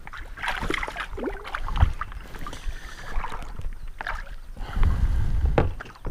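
Irregular splashes, knocks and handling noise around a kayak on a river. A sharp knock comes just under two seconds in, and a low rumble about five seconds in.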